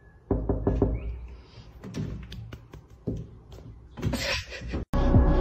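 Knuckles knocking and tapping on a window, a string of irregular sharp knocks, with a short rasping noise about four seconds in.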